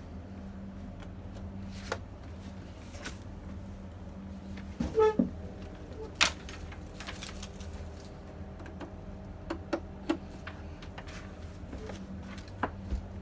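Scattered clicks and knocks of computer case and component parts being handled, with a short squeak about five seconds in, over a steady low hum.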